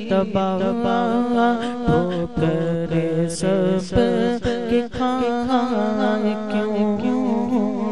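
A solo voice singing an Urdu naat a cappella, drawing out long, wavering, ornamented notes over a steady hummed drone.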